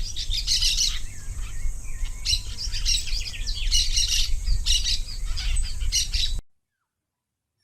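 Many birds chirping in quick, overlapping high calls over a low rumble, cutting off suddenly about six seconds in.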